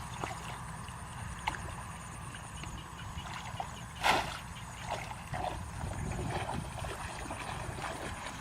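Water splashing and trickling, with one louder sharp splash about four seconds in and small scattered knocks, under a steady low rumble.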